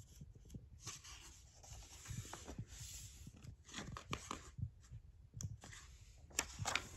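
Pages of a hardcover picture book being turned by hand: paper rustling and sliding against paper, with a few sharp page flaps near the end.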